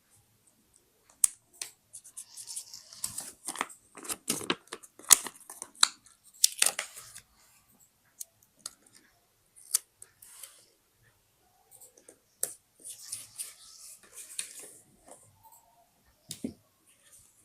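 Scissors cutting paper and paper being handled: irregular sharp snips and short rustling swishes, with quiet gaps between.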